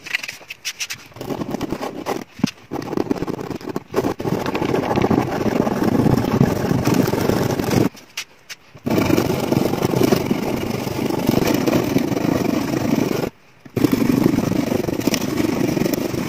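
Steady scraping on the bare wood of a classical guitar's top where the bridge was glued, as the old glue and residue are worked off the bridge footprint. It starts about a second in and stops briefly twice.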